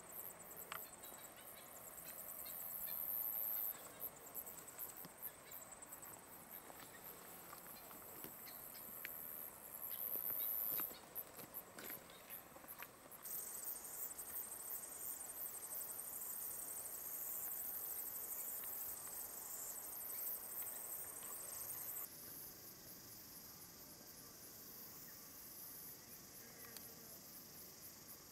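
Insects chirring in the scrub, a thin, high-pitched pulsing drone that changes abruptly several times, with a few faint clicks.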